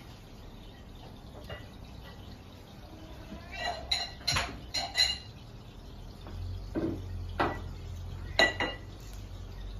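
Dishes clinking: a quick run of sharp, ringing clinks about halfway through, then a few more spaced out near the end, as cat food bowls are handled at feeding time.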